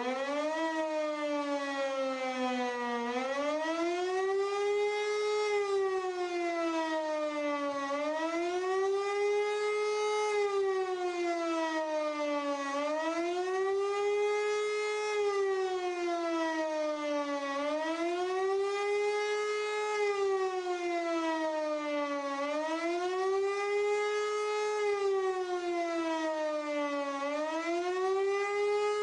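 E57 electro-mechanical civil-defence siren, driven by a 5 kW three-phase motor, wailing up and down in pitch about every five seconds. It has just reached full pitch as it starts. This is the German warning signal to the population, sounded here as a test alarm.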